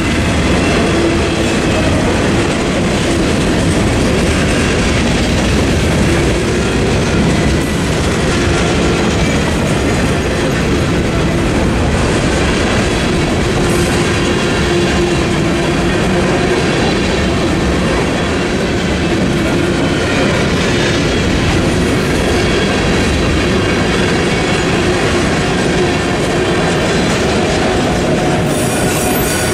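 Freight cars of a Norfolk Southern mixed freight train rolling steadily past close by: a continuous rumble and clatter of steel wheels on rail.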